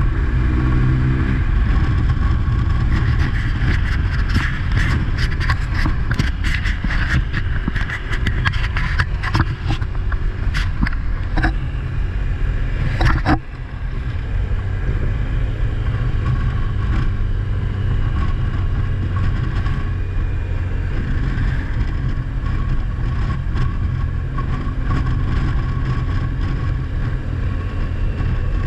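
Car driving, with a steady engine and road rumble. A run of clicks and crackles in the first half ends in one sharp crack about thirteen seconds in.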